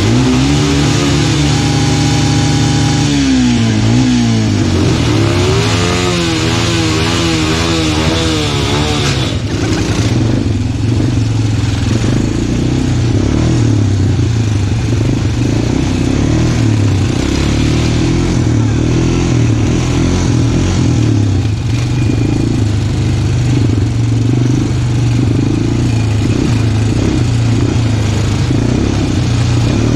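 Small off-road vehicle engine running under riding, its revs rising and falling repeatedly over the first several seconds, then holding steadier with small wavers.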